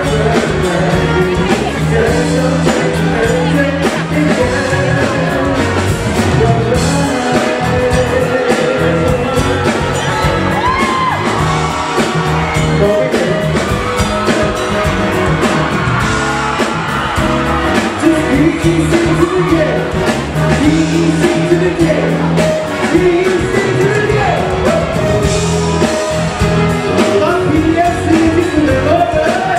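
Live band music with singing, loud in a large room, with shouts and whoops from the crowd.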